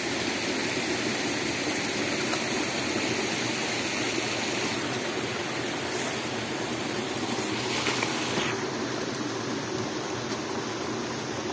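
Steady rush of a stream's flowing water.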